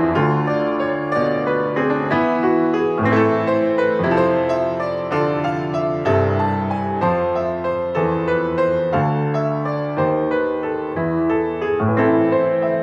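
Piano music: sustained chords with a melody over them, new notes struck about once a second.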